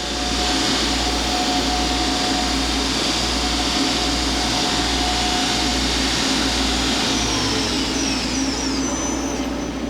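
Main spindle of a 1997 Miyano BNE-46S CNC turning center running steadily at 3500 rpm, a loud continuous machine whir. Near the end a few short high tones fall in pitch, as the spindle begins to slow.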